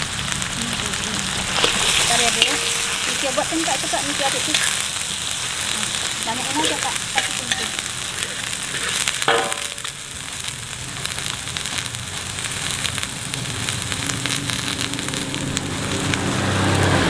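Bean sprouts and egg sizzling as they are stir-fried in a hot wok, turned with a metal spatula, with fine crackles and one sharper knock of the spatula on the pan about nine seconds in.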